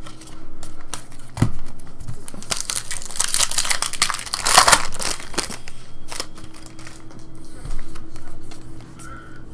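Trading-card pack wrapper crinkling and tearing as it is ripped open by hand, a dense crackle that builds and is loudest a little past the middle, with scattered clicks of cards being handled around it.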